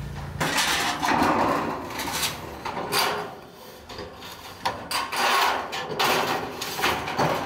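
Rough scraping strokes of a hand tool on wood, in about five uneven bursts of half a second to a second each.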